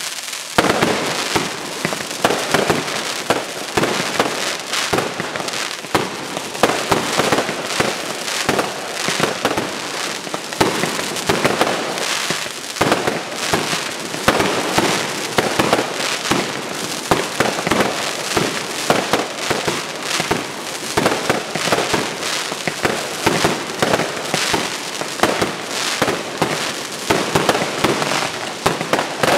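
Fireworks display firing a continuous barrage: rising comets and aerial shells bursting, with many bangs and crackles each second and no let-up.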